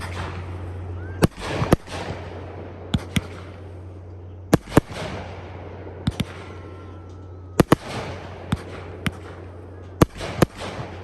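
Fireworks display: firework shells going off in sharp bangs, about fifteen over the stretch and often in quick pairs, with a crackling hiss trailing after several of them. A steady low hum runs underneath.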